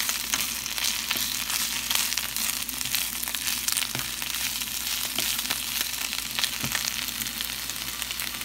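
Spinach sautéing in oil in a pan: a steady sizzle with many small crackles.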